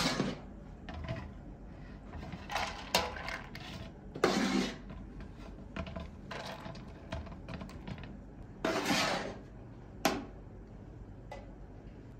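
A metal ladle scooping parboiled rice from a metal bowl and tipping it into a metal pot, with scrapes and clinks of metal on metal: four scooping scrapes and one sharp clink about ten seconds in.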